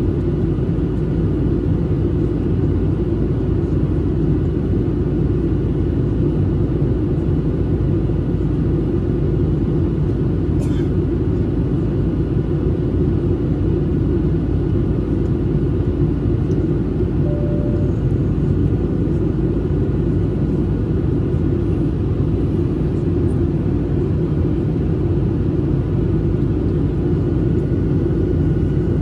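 Steady cabin drone of a Boeing 737-800 in flight, heard inside the cabin: the CFM56 turbofans and the airflow over the fuselage make a deep, even rumble with a few faint steady tones over it. A single brief click comes about ten seconds in.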